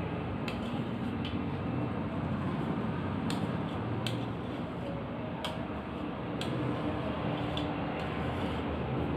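Coffee being mixed with milk by hand in a container: scattered light clicks and knocks, irregularly spaced, over a steady background noise.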